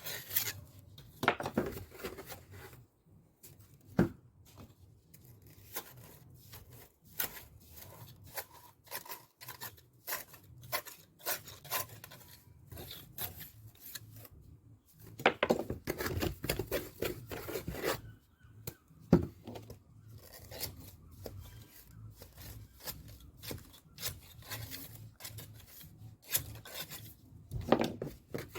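A steel pointing trowel scraping and pressing mortar into brick joints, with irregular clicks and taps of the blade against the brickwork and longer scraping strokes about a second in, midway and near the end.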